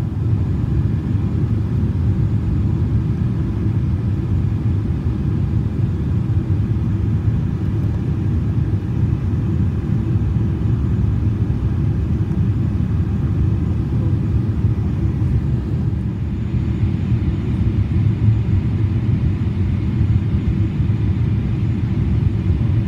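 Steady low rumble of a Boeing 777-300ER's engines and airflow, heard inside the rear passenger cabin during the descent.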